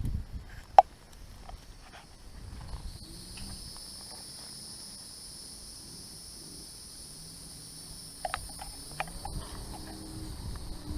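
Insects outdoors, a steady high-pitched drone that sets in about three seconds in and holds. A few sharp clicks cut across it, the loudest about a second in.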